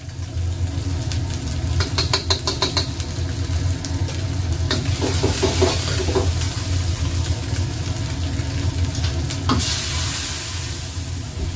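Chili bean paste seasoning sizzling in hot oil in a wok over the steady rush of a gas wok burner, with a metal wok spatula scraping and clinking against the pan. About nine and a half seconds in, bone stock is poured in and the pan hisses with steam.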